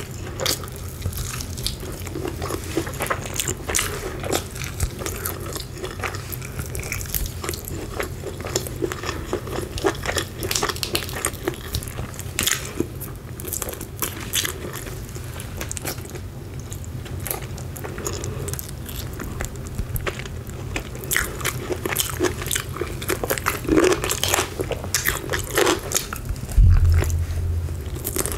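Close-miked eating of fried chicken: crispy coating crunching under the teeth, with biting and chewing in a dense run of small crackles and clicks. One louder low thump about two seconds before the end.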